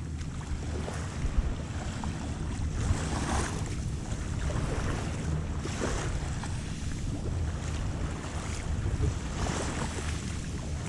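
Ocean waves washing on a sandy beach, swelling and fading about every three seconds, over a steady rumble of wind on the microphone.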